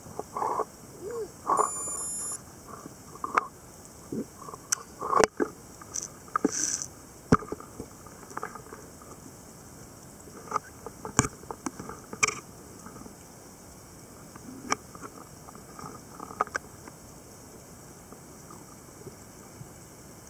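Underwater sound picked up by a camera in open sea: scattered clicks, knocks and short squeaky tones, with a short high beep about two seconds in.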